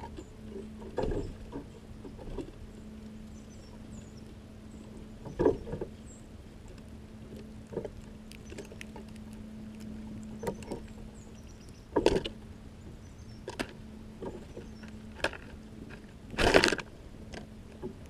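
Small songbirds at a seed feeder: scattered sharp knocks and scrapes as birds land and peck among the seed. A louder flurry of wing flutter comes near the end as a tufted titmouse flies in. A steady low hum runs underneath.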